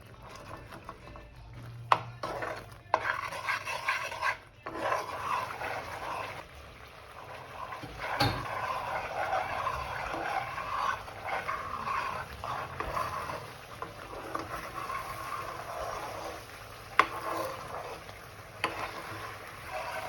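A spoon stirring and scraping thick jaggery and ginger paste in a pan, cooking it down until it thickens and starts to leave the pan. A few sharp knocks of the spoon against the pan stand out.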